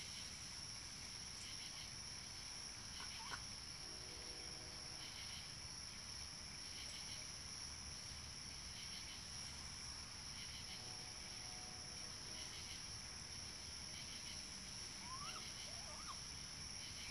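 Night insects, crickets among them, trilling steadily in a continuous high-pitched chorus, with softer chirps repeating every second or so. A few faint short rising squeaks come about three seconds in and again near the end.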